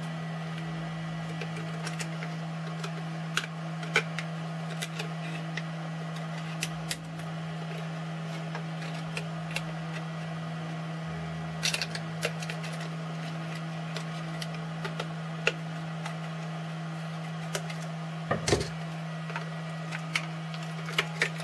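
Scissors snipping and clicking through clear plastic wrap, with the film crinkling as it is trimmed and fitted around a battery pack, over a steady hum from a small motor that winds down near the end.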